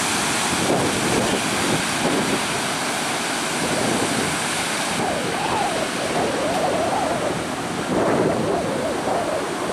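Sea surf breaking and washing up the beach, with wind buffeting the microphone.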